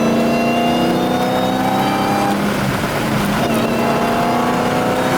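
Dodge Challenger Hellcat's supercharged 6.2-litre Hemi V8 accelerating under load. The engine pitch climbs steadily, drops at a gear change about halfway through, then climbs again in the next gear.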